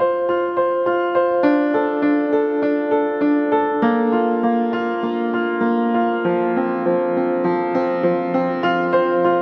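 Background music: a gentle piano or electric-piano piece with evenly paced notes.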